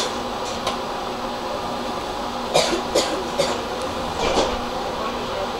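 Inside a stationary tram: a steady hum from the car's equipment, with several short, sharp sounds, mostly between about two and a half and four and a half seconds in.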